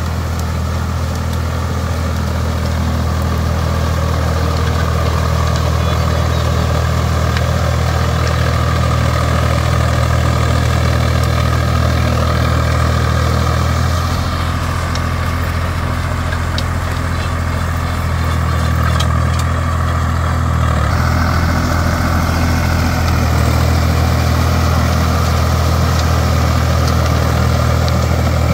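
Swaraj 744 FE tractor's three-cylinder diesel engine running steadily under load, driving a rotary tiller through flooded paddy mud.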